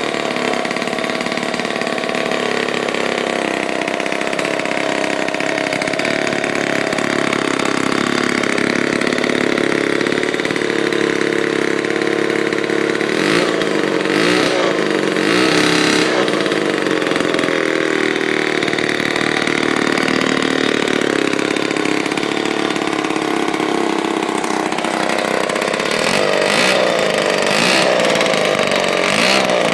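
1949 Lombard OMS chainsaw's Homelite-built two-stroke engine running on its first start after a complete overhaul, with no bar or chain fitted. It runs steadily and is revved up and down a few times, around the middle and again near the end.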